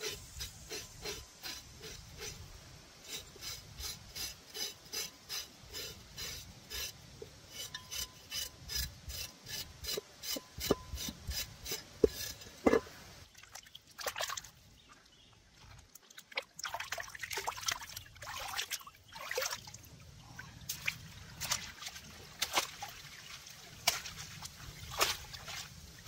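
Repeated rubbing, scraping strokes, about two to three a second, followed by scattered sharp knocks and scrapes.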